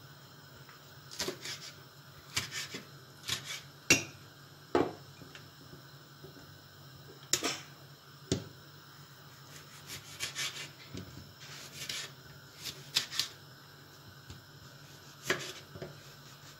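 Scattered sharp clicks and knocks, the loudest about four seconds in, from a knife cutting vegetables on a wooden board and vegetables being packed into a large glass jar.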